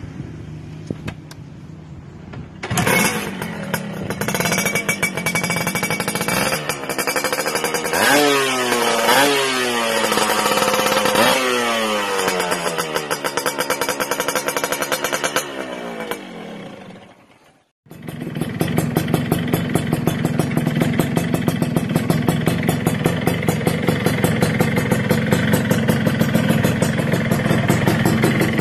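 Two-stroke motorcycle engines through chrome expansion-chamber racing exhausts. A Suzuki Satria two-stroke comes in about three seconds in and is blipped several times, each rev jumping up and falling back. After a short break a second two-stroke runs at a steady, fast-pulsing idle.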